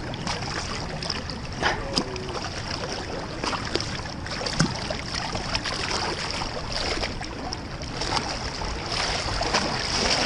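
Water sloshing and splashing around a large wels catfish as a gloved hand reaches in to grab it in the shallows, with many small irregular splashes over a steady rush of river current.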